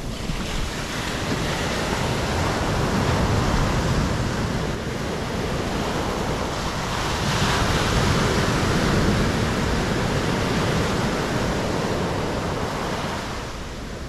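Surf washing onto a sandy shore: broken waves rush up the beach and spread as foam, the sound swelling twice and easing off near the end.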